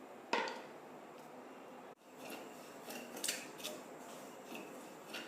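Spatula scraping and stirring dry wheat rava in a pan as it roasts: one sharp scrape about a third of a second in, then a run of short scrapes and clinks in the second half.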